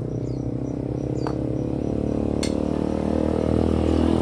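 A motor vehicle engine running steadily and getting louder as it approaches. Two brief clicks are heard, one a little over a second in and one near the middle.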